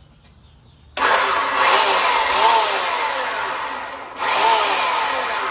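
Chainsaw cutting the corners off a fresh-cut log. It starts abruptly at full level about a second in, drops out for a moment around four seconds, then cuts again, its pitch wavering under the load.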